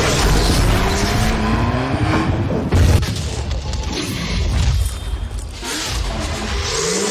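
Loud intro music mixed with sound effects: rising, engine-like revving glides and a sudden boom about three seconds in.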